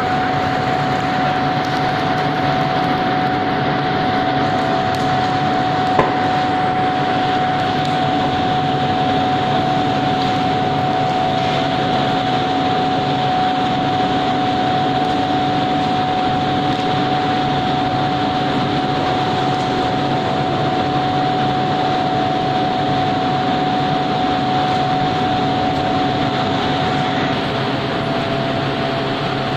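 Steady drone of heavy steel-plant machinery, with a constant high whine over the noise and a single sharp click about six seconds in.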